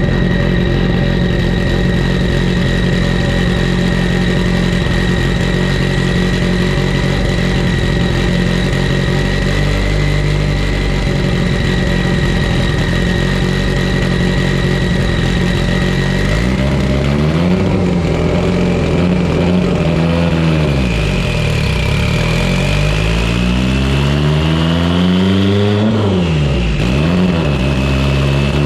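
Mitsubishi Lancer Evolution VIII's built, turbocharged 2.0-litre four-cylinder running on a chassis dyno. It holds a steady speed with a high whine over the engine note, then about two-thirds of the way in its pitch dips and climbs, rising to a peak, dropping sharply and climbing again.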